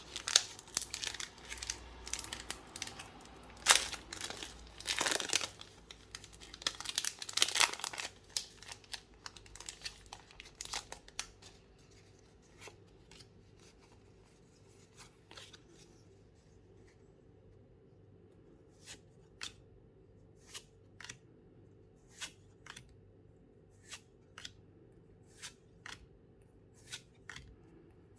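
Pokémon booster pack wrapper being torn open and crinkled for the first eight seconds, then the cards being flicked through one by one as short sharp clicks, about one a second.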